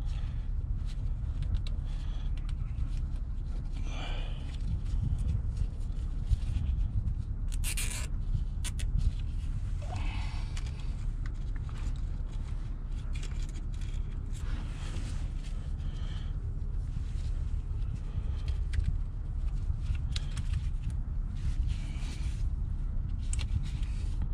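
Scattered clicks, taps and scrapes of hand work on metal parts, over a steady low rumble.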